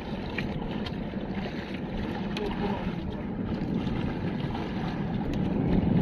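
Steady wind and water noise on a small fishing bangka at sea, with a few faint clicks.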